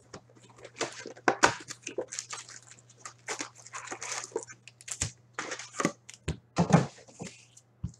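Cardboard hockey card retail box being torn open by hand, with foil card packs crinkling and rustling as they are pulled out. A sharper knock comes about two-thirds through as the packs are handled onto the table.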